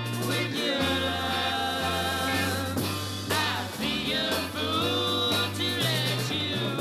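Music: a 1960s beat-pop band recording playing, with a bass line stepping between notes under guitar and singing.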